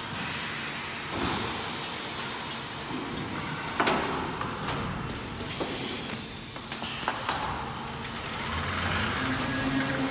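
URBAN AKS 6110 + SV 530 window-frame welding and corner-cleaning line running: conveyors and a gantry transfer arm moving a welded frame, with a sharp knock about 4 s in and a burst of hissing about 6 to 7 s in.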